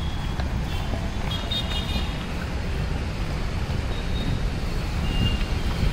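Steady city road traffic noise, with a few faint, brief high tones heard now and then above it.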